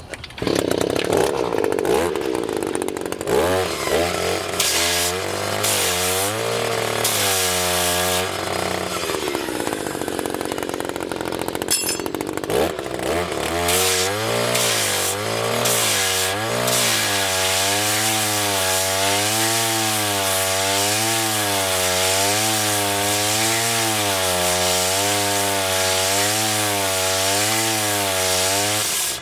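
Powered sharpener grinding the worn teeth of a forestry mulcher, worked up and down in repeated strokes; its running pitch rises and falls about once a second as each stroke loads it. The teeth are worn, so they take more than the usual four strokes.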